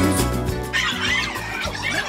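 Latin-style music playing; about two thirds of a second in, a crowd of children breaks into high squeals and shrieks over it.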